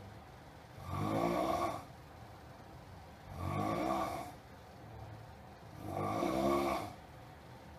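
A sleeper snoring noisily: three rasping snores about a second long each, coming in a steady rhythm about every two and a half seconds.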